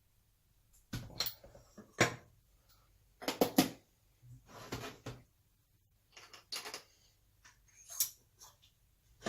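Scattered clicks, knocks and clinks of small metal SU carburettor parts and hand tools being handled on a workbench while the jet and its lock nut are worked on.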